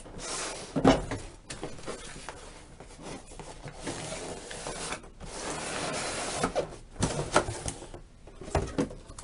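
Long cardboard inner boxes sliding and scraping out of a cardboard packaging box, a rustling scrape, with a knock about a second in and a few more near the end as the boxes and the outer box are set down on the table.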